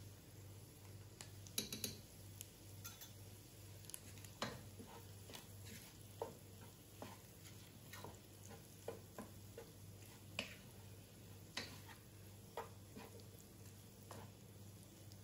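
Wooden spoon stirring diced sausage and vegetables in a nonstick pot: irregular light knocks and scrapes against the pot, the loudest cluster about two seconds in.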